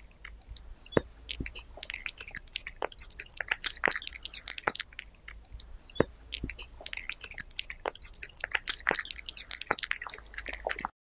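Cat chewing a chunk of raw meat close to the microphone: many quick, irregular clicks of bites and mouth sounds.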